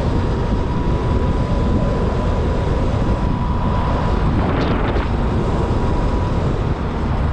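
Strong wind buffeting the microphone while riding a Sur-Ron X electric dirt bike at speed, a dense steady rumble, with a thin steady whine underneath.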